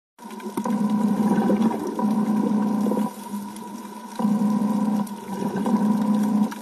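Muffled underwater water noise, a low rumble that comes in surges of one to three seconds with a dip in the middle.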